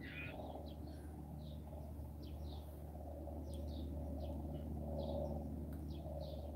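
Small birds chirping: short, high calls scattered a few times a second, over a steady low hum.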